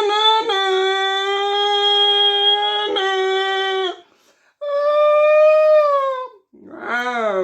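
A person imitating car engines with his voice: a long steady hummed note held for about three and a half seconds, then after a short break a higher note that slowly sags, and near the end a quick rising-and-falling sweep like an engine revving.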